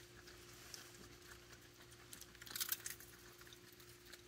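Raccoons feeding at dishes: faint clicking and crackling, with a brief cluster of clicks about two and a half seconds in, over a steady faint hum.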